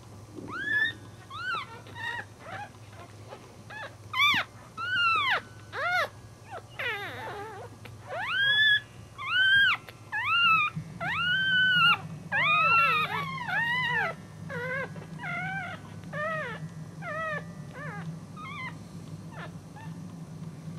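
Newborn Cairn Terrier puppies squealing: many short, high-pitched cries in quick succession, each rising then falling in pitch, loudest in the middle and growing fainter toward the end.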